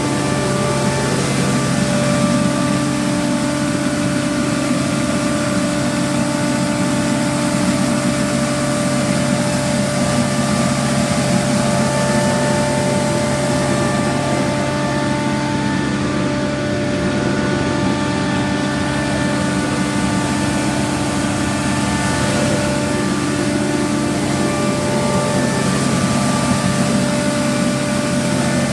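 TYMCO regenerative-air street sweeper running steadily while vacuuming leaves: its engine and blower give steady tones over a constant rush of air.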